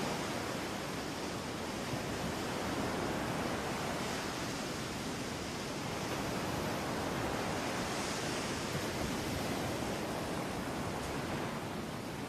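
Steady rush of ocean surf on a beach, an even hiss with no breaks.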